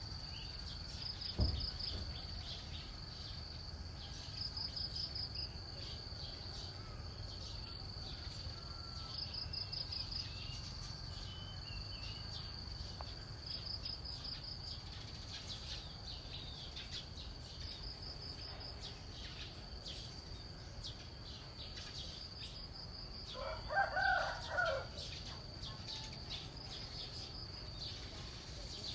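Steady high-pitched insect drone with short pulsing bursts every four seconds or so. A dull thump comes about a second and a half in, and a single call about a second long is heard near the end.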